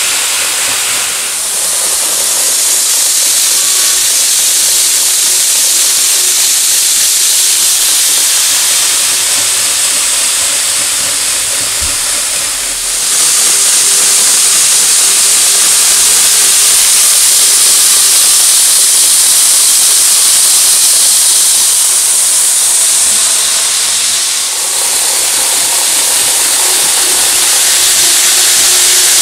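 N-gauge KATO E4 Series Shinkansen model train running on layout track: a steady, loud hissing rush of wheels on rail, with a faint steady hum beneath it. The level shifts briefly a few times, about a second in, near the middle and about three quarters through.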